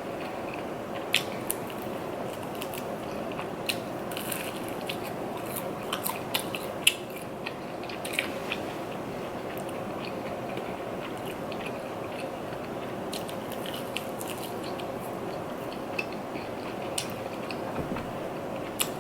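Close-up biting and chewing of a fried chicken wing: scattered short crunches and mouth clicks over a steady hiss. The wing's coating is not very crunchy.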